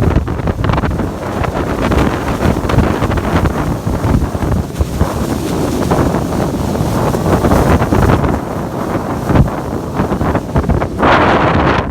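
Loud, steady rushing of Niagara Falls' falling water, with wind buffeting the microphone.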